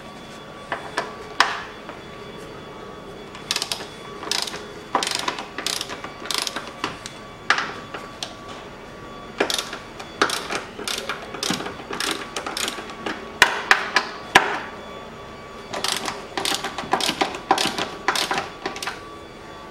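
Socket ratchet with a 13 mm socket clicking in short bursts, over and over, as the three bolts of the front strut top mount are undone.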